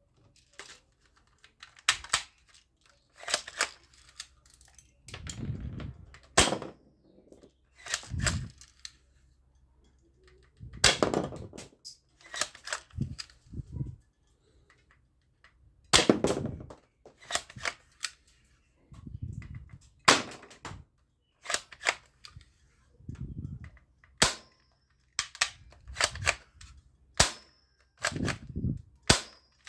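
Toy guns being fired over and over: sharp cracking shots at irregular intervals, about one a second, some followed by a short low thud.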